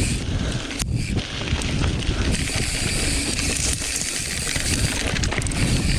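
Mountain bike riding down a dirt singletrack: a steady rush of wind on the microphone and tyre noise over dirt, with scattered rattles and clicks from the bike, one sharp click about a second in.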